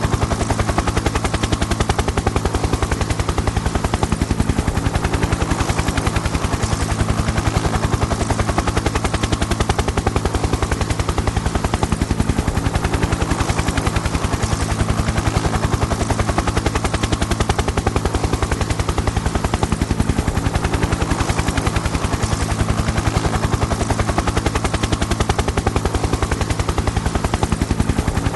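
Helicopter running steadily, its rotor blades chopping in a fast, even beat over the steady drone of the engine.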